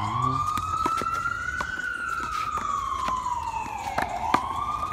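Emergency vehicle siren wailing, its pitch slowly rising and falling, dipping lowest about four seconds in before climbing again. Several sharp knocks sound over it, the loudest just after the dip.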